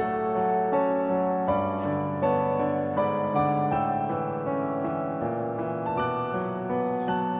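Background piano music: sustained notes changing in steps, with no other sound standing out.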